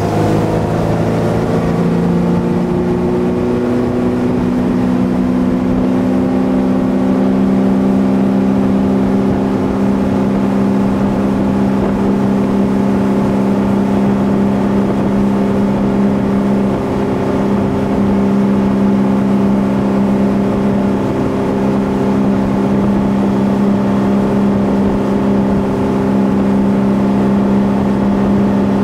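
Ski boat engine pulling a barefoot water skier, rising in pitch over the first two seconds, then running steadily at towing speed, with the rush of the wake underneath.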